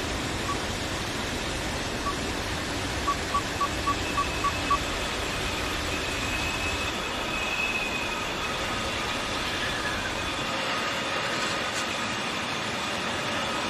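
Car climate-control panel beeping, once, again, then six quick beeps at about three a second, as it is stepped to its coldest setting at full fan. Under the beeps is a steady rush of air from the vents. Faint steady tones join in the second half.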